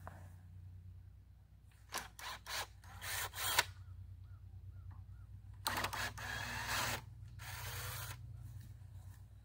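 Cordless drill running in a few short bursts, then two longer runs of about a second each with a whine, backing out the screws that hold the guide rail's metal bracket to the log.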